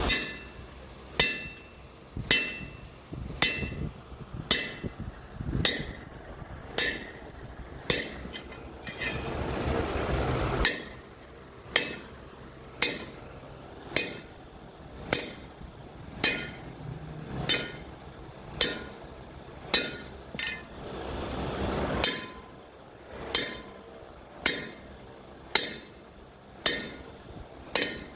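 A hammer striking metal in a steady rhythm, about one blow a second, each blow ringing briefly. Twice a steady hiss rises for a second or two between the blows.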